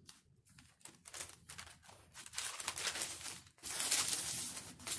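Parchment paper and UHMWPE fabric sheets rustling and crinkling as they are handled and smoothed by hand, in short scattered rustles, then a longer, louder crinkle starting about three and a half seconds in.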